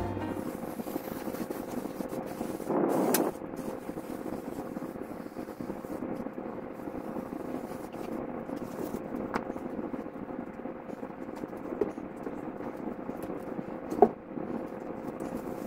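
Steady room hum with a faint constant tone, a brief hiss about three seconds in and a few light clicks, then a single thump near the end as a mattress is handled and stood on its side.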